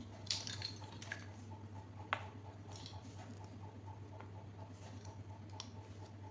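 Small plastic miniature toy kitchen pieces being handled: a few scattered light clicks and taps, the sharpest about two seconds in, over a low steady hum.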